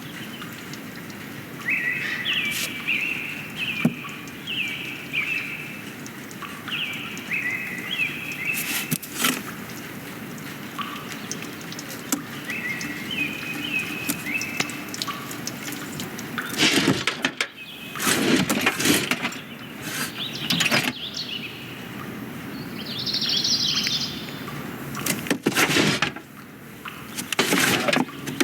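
Film sound-effects track: birds chirping in repeated short falling phrases over a steady outdoor background. In the second half this gives way to bursts of loud knocks, thuds and clatter.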